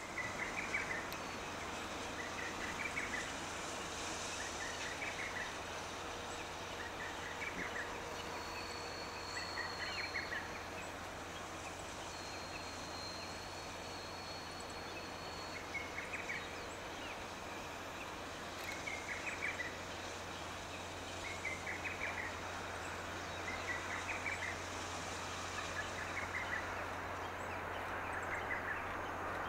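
Steady hiss and low hum of the C57 steam locomotive standing in the station, with a bird giving short trilling chirps every one to three seconds over it.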